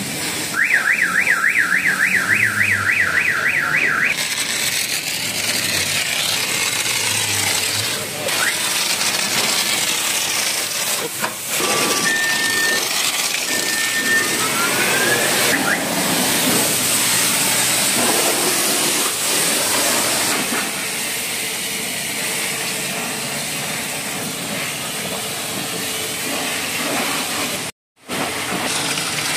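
A car alarm warbles quickly up and down, about four sweeps a second, for the first few seconds. Then comes the steady hiss of a foam sprayer coating the car's interior and bodywork in snow foam, with a few short beeps midway. The sound cuts out for a moment near the end.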